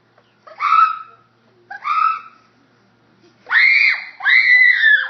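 A bird screeching loudly: four separate shrill calls, each rising then falling, the last two longest and loudest.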